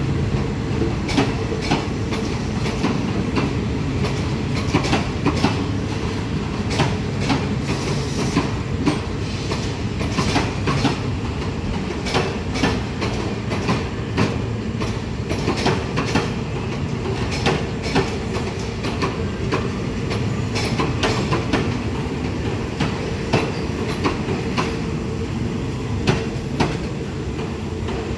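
Train of passenger coaches rolling slowly out of the station behind a diesel locomotive. The wheels clack irregularly over rail joints and points above a steady low rumble.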